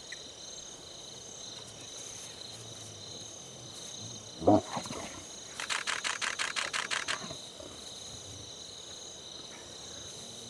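Crickets chirring steadily at night. About four and a half seconds in, a lion gives one short, loud growl: a male snapping at cubs that pester him to play. It is followed by a rapid run of about ten short, higher-pitched calls.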